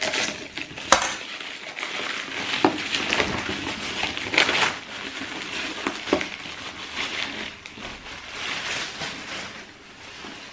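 A plastic courier bag being torn open and crinkled, then a cardboard shoebox drawn out of it and handled, with a steady crackle of plastic and a few sharp clicks.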